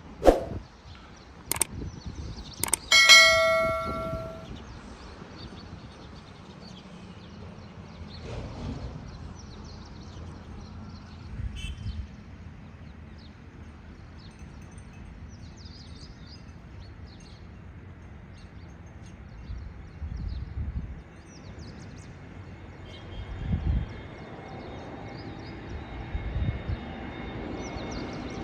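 Three sharp clicks, then a single metallic ding that rings for about a second and a half, over steady outdoor background noise. In the last few seconds the whine of an approaching landing airliner's jet engines builds up.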